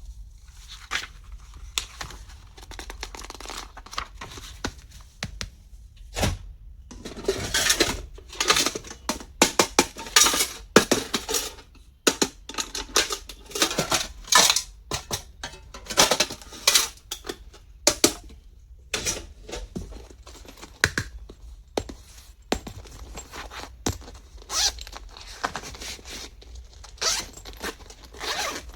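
Stationery being unboxed by hand: packaging torn and crinkled, with irregular clicks and taps of small plastic items being handled.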